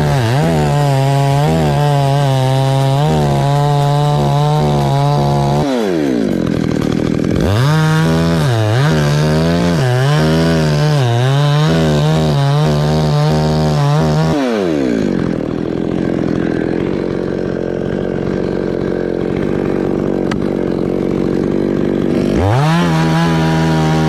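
Petrol chainsaw cutting through a coconut palm trunk at full throttle, its pitch wavering as the chain works in the wood. The engine drops to idle about six seconds in and revs back up a second later, drops to idle again for about eight seconds midway, then revs up once more near the end.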